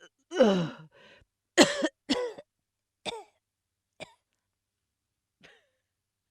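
A person retching: a strained heave falling in pitch, then a string of short, sharp gagging heaves that grow shorter and fainter, the last and faintest about five seconds in.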